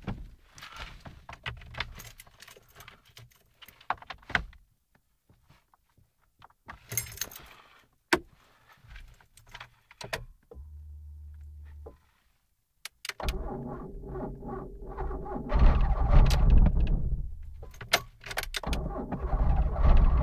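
Keys and ignition switch rattling and clicking, a brief low hum, then the Fiat Cinquecento Sporting's 1108 cc four-cylinder engine starts about 13 seconds in: a cold start at −19 °C after two days standing. It runs louder from about two seconds later, its speed dropping and rising again near the end.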